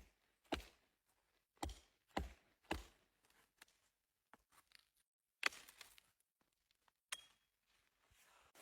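A series of about six sharp knocks and thuds at irregular intervals, with faint clicks between them.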